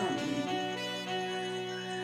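Instrumental background music: soft, sustained held notes with no beat.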